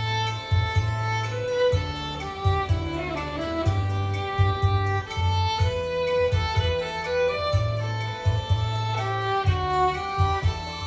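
Violin playing a melody of held, bowed notes over an accompaniment with a low bass line and a steady beat.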